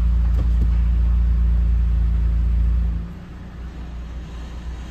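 Toyota Highlander's 3.5-litre V6 running, heard from inside the cabin as a steady low hum that drops sharply in level about three seconds in.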